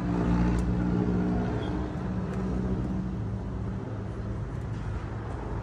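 A motor vehicle's engine running steadily nearby, louder in the first two seconds and then easing off a little.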